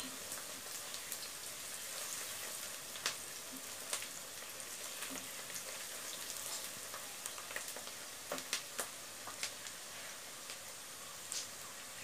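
Sliced onions sizzling steadily in hot oil in a karai, at the stage where they are stirred until their juice cooks off. A spatula stirs them, scraping and clicking against the pan a dozen or so times.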